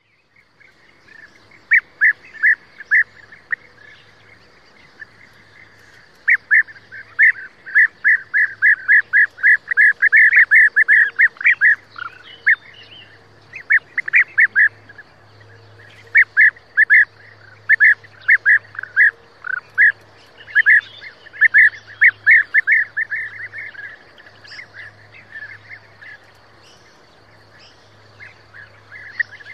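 European bee-eater calling: short calls repeated quickly in runs of several seconds, with a pause about four seconds in and another near the end.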